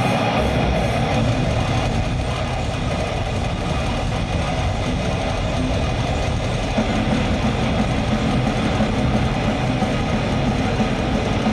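Extreme metal band playing live at full volume: heavily distorted electric guitars, bass and drums merge into a dense, unbroken low roar.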